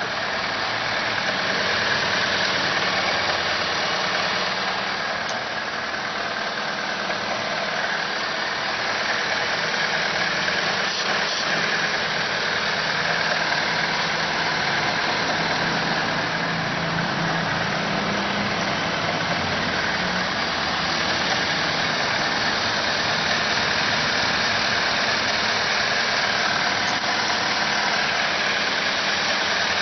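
Car petrol engine idling steadily, heard close up with the hood open. The owner suspects its hanging high idle comes from a vacuum leak, but his search has found none.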